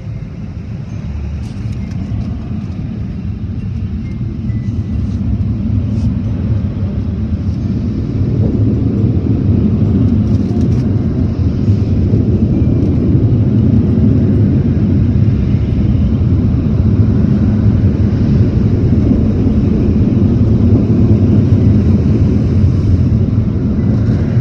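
Automatic tunnel car wash equipment working over the car, heard from inside the cabin as a loud, muffled, steady rumble and rush. It builds over the first several seconds and drops off sharply near the end.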